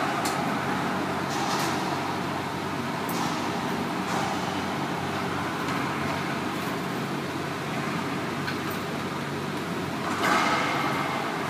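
Racquetball hits and bounces ringing in the enclosed court: several sharp cracks with an echo near the start, a few more spread out, the loudest a little before the end, over a steady background hum.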